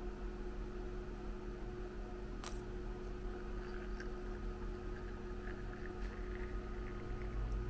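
A thin stream of liquid trickling faintly into a small stainless steel milk pitcher over a steady low hum, with one sharp click about two and a half seconds in.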